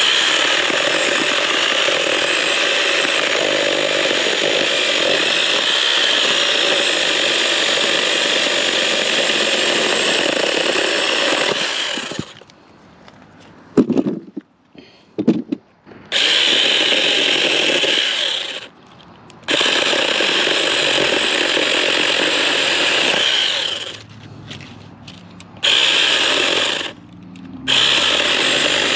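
Battery-powered Tietoc mini chainsaw with a 6-inch bar cutting mesquite logs: it runs steadily for about twelve seconds, then starts and stops in several shorter runs of a few seconds each. A few sharp knocks of wood come in the first pause.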